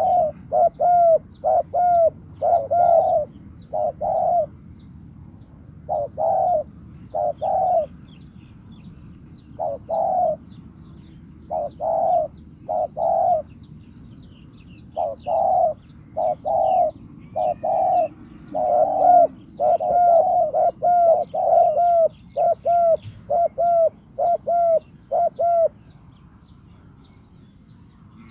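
Spotted dove cooing in repeated phrases of short, mellow notes, with brief pauses between phrases: a decoy dove calling to lure wild doves. Faint high chirps run in the background.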